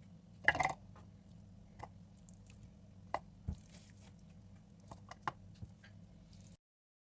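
Scattered light taps and clicks of kitchen handling over a low steady hum. The loudest tap comes about half a second in, and the sound cuts off abruptly near the end.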